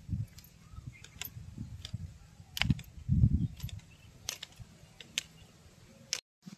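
Sharp little snaps and clicks, a second or so apart, as green pakad (white fig) fruits are plucked off a cut branch, with a dull low thump about three seconds in from the branch being handled.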